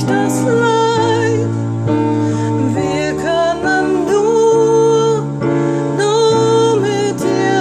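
A woman singing a slow melody with vibrato over held keyboard chords that change every second or two.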